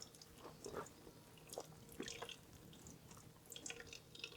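Faint wet squishing and dripping of ground onion pulp being squeezed to press out its juice, in scattered soft little clicks.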